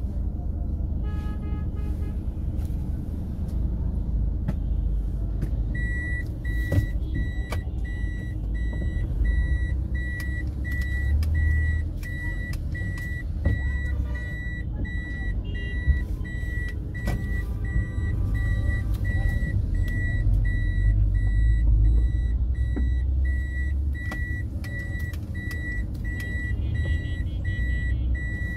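A road vehicle running in traffic: a steady low rumble with a few knocks and rattles. From about six seconds in, a high electronic beep repeats at an even pace.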